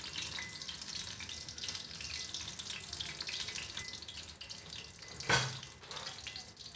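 A cornflake-crumbed chicken piece deep-frying in hot oil in an iron kadai: a steady sizzle with fine crackling. A single brief knock about five seconds in.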